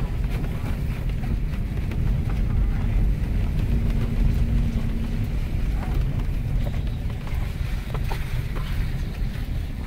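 Cabin noise of a second-generation Cadillac Escalade driving over a wet, rough stone road: a steady low rumble of tyres and engine with scattered small knocks and rattles.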